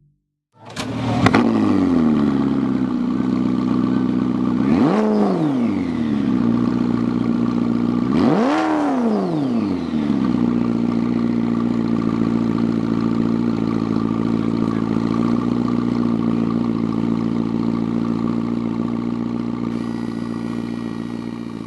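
An engine starts, catching abruptly about a second in, is revved up and back down twice, then settles into a steady idle.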